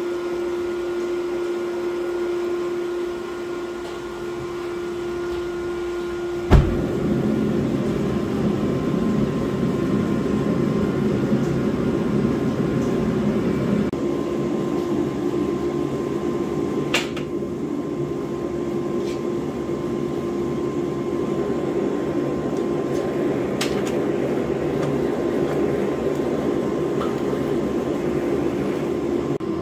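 Gas forge burner running steadily, a constant hum with a rushing noise, as the forge heats up. A sharp knock about six and a half seconds in, after which the rushing gets fuller, and a couple of lighter clicks later.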